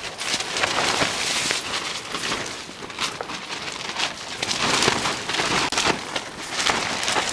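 Rain hitting a tent's fabric, heard from inside the tent, with the wind shaking it. It comes as a dense hiss full of sharp taps.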